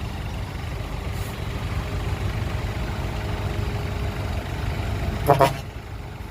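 Heavy diesel engine running steadily at a low rumble. About five seconds in there is one short, loud, pitched blast, and the rumble is quieter after it.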